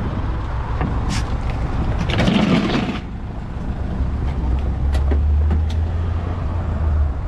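Steady low drone of a motor vehicle's engine, strongest over the second half, under scattered knocks and clatter from handling a scrap washing machine at the back of a van.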